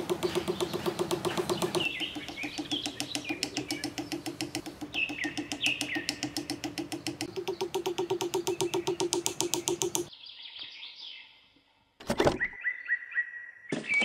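Birds chirping over a rapid, steady pulsing buzz of about ten beats a second, which cuts off about ten seconds in; a sharp knock comes about two seconds later.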